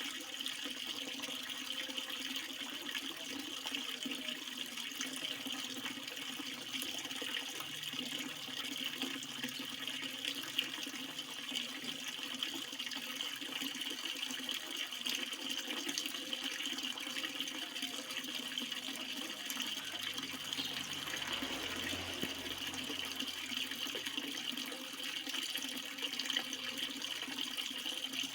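Water flowing steadily, a continuous even rush with a faint low swell a little over two-thirds of the way through.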